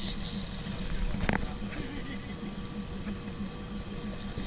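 Jet boat's engine running steadily at low speed, with one sharp knock about a second in.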